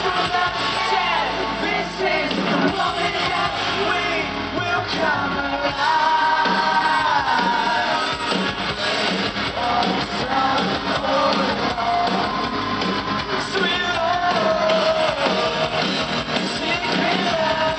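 A rock band playing live and loud, a male voice singing over electric guitar.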